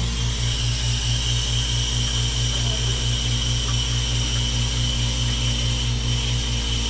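Hoshizaki IM-500SAB commercial ice maker running with its compressor and condenser fan on, a steady machine hum with a rapid low pulsing about five times a second and a faint high whine. The compressor is running on a fresh refrigerant charge as the unit goes into harvest.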